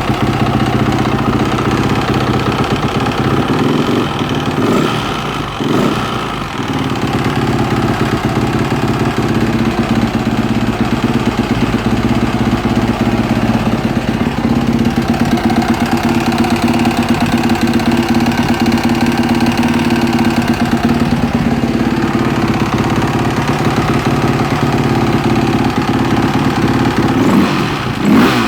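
Yamaha YZ450F single-cylinder four-stroke engine idling with a clacking noise, revved briefly about five seconds in and again near the end. The owner wonders whether the clack is abnormal and suspects the cam timing chain or a crankshaft bearing.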